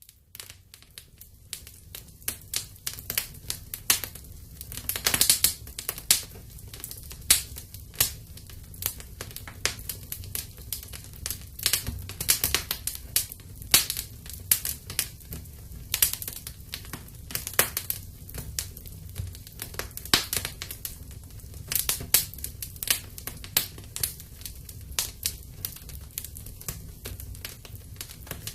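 Wood fire burning in a fireplace, crackling with irregular sharp pops and snaps over a low steady rumble of the flames.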